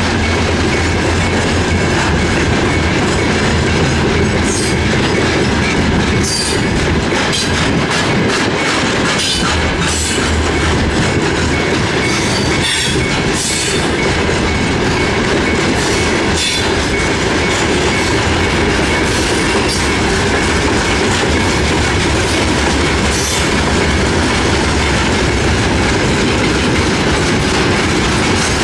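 Loaded freight wagons of a Belarusian Railways freight train rolling past close by: a steady loud rumble of wheels on rail, with irregular sharp clacks from the wheels crossing rail joints and a thin steady high tone throughout.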